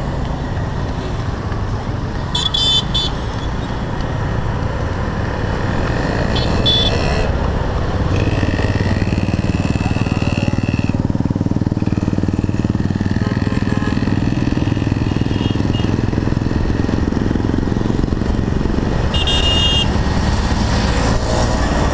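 Honda Navi's small single-cylinder engine running as the bike rides through city traffic, with wind noise on the helmet microphone, getting louder about eight seconds in. Short vehicle-horn toots sound three times: a couple of seconds in, about six seconds in, and near the end.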